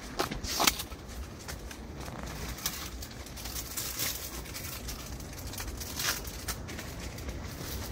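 Tent walls flapping and rustling in strong wind: irregular sharp fabric rustles over a low, steady wind rumble, the loudest gusts coming about half a second in.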